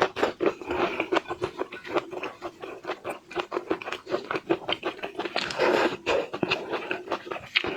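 Close-miked eating of seafood: a dense run of wet clicks, crackles and scrapes, with a noisier rustling stretch about five and a half seconds in.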